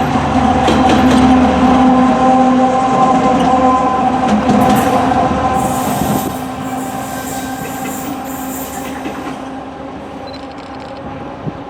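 Diesel train passing close by: the engine runs with steady tones and the wheels click over the rails. A high-pitched noise joins in around the middle, and the sound fades as the train draws away.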